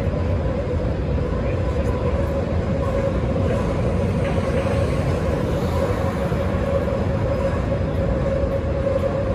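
Chicago 'L' elevated train running over the street, mixed with city traffic rumble and a steady droning tone.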